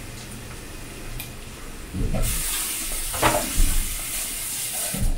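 Pan of fried peppers and tomato paste sizzling hard as grated tomato goes into the hot oil, starting about two seconds in, with a few dull knocks of pan and utensil.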